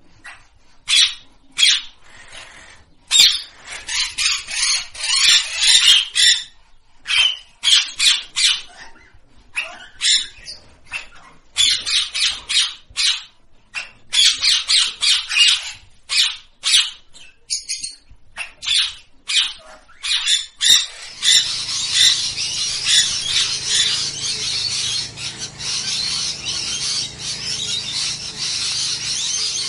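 Rose-ringed parakeet giving short, harsh squawks in quick runs with short pauses between. About twenty seconds in this gives way to a steady, dense chatter of many birds.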